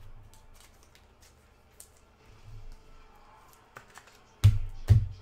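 Trading-card packs and cards being handled by hand on a table: scattered light clicks and rustles, then two loud knocks close together about a second before the end.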